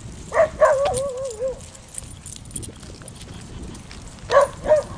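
Dog barking in an off-leash play session: two sharp barks about half a second in, the second drawn out into a wavering, howl-like note, then two more sharp barks near the end.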